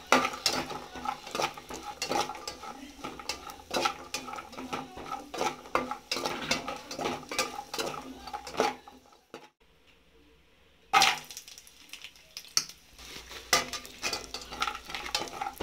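Metal spoon stirring cashews and raisins in a metal pan: a quick run of scraping clinks against the pan and rattling nuts. It drops out for about two seconds partway through, then starts again.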